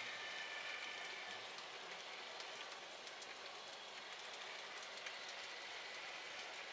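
Model railway wagons rolling past on the track: a steady light rattle and hiss of small metal wheels on the rails, with faint scattered clicks and a faint high whine that fades in the first second or so.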